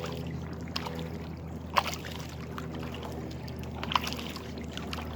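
Kayak on the water: a few sharp knocks and water sounds from the paddle and hull, the loudest about two seconds in, over a steady low hum.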